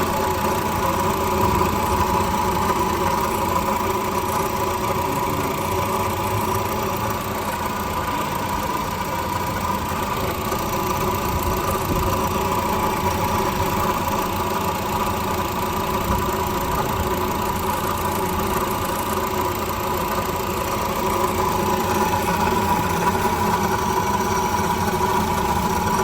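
A Honda City 1.5-litre four-cylinder engine idling steadily, with a constant tone over the running noise that sounds like a broken bearing. It comes from the worn bearing inside the water pump.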